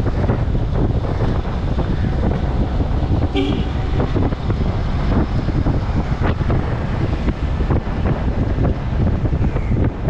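Road noise from moving through city traffic, heavily buffeted by wind on the microphone. A short pitched tone, like a horn beep, sounds about three and a half seconds in.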